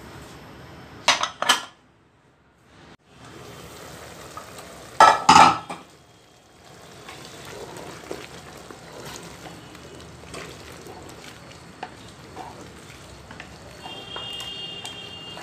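Metal clatter of a pressure cooker being handled, a few loud clanks about a second in and again around five seconds in. Then a wooden spoon stirs cucumber and meat curry in the open metal pressure cooker over a steady frying sizzle.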